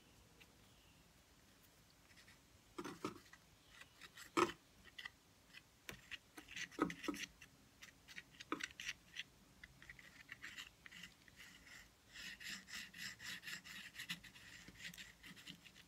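Palette knife scraping and spreading paint across textured, gessoed paper: scattered short scrapes and a few sharp taps, then a quick run of short scratchy strokes near the end.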